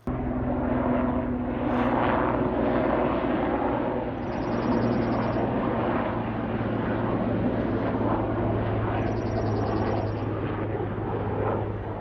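Helicopter flying overhead: a loud, steady drone of engine and rotor with constant low humming tones under a rushing noise.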